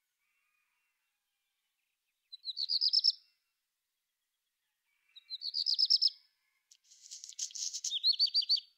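A songbird singing three short phrases, each a quick run of repeated high notes that grows louder. The phrases come about two and a half, five and seven seconds in, and the last starts with a scratchy rattle.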